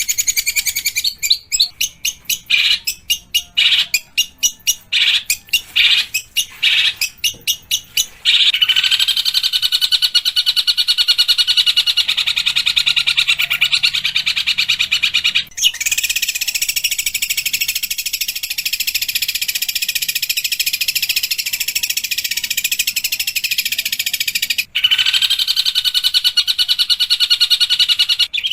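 Long-tailed shrike's harsh, rapid-fire song: quick sharp notes at first, then from about eight seconds in long runs of dense rasping chatter, broken by two brief pauses.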